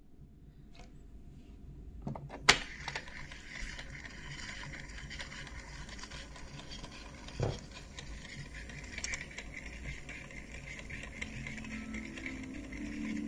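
Portable cassette player: a sharp mechanical click about two and a half seconds in, then the tape transport running with a steady whirring hiss. There is a dull thump about halfway through, and faint steady musical tones come in near the end.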